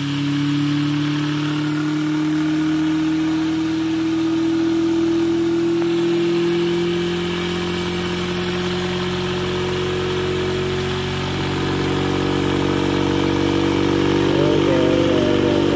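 Adams pulsed electric motor-generator running: a steady hum from its pulsed drive coils and spinning magnet rotor, rising slowly in pitch and then levelling off about two-thirds of the way through as the motor speeds up with the generator's short circuit removed.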